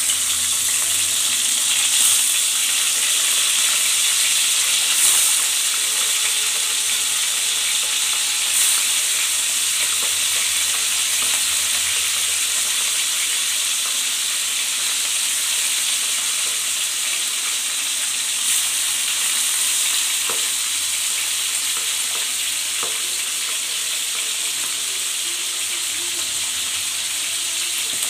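Pabda fish frying in hot mustard oil in a wok: a steady, loud sizzle with a few brief sharper spits, as more fish go into the oil.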